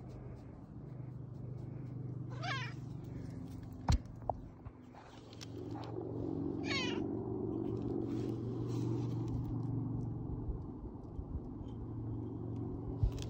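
Domestic cat meowing twice in short calls, about two and a half seconds in and again near seven seconds, over a steady low purr close to the microphone. A sharp click comes about four seconds in.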